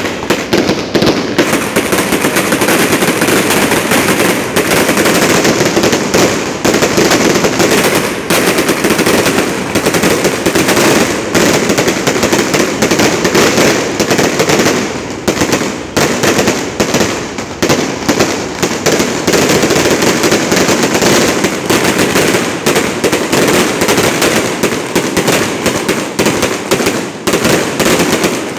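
Aerial fireworks going off in a dense, unbroken crackle of rapid pops, shell after shell bursting into crackling stars. The barrage is loud and does not let up.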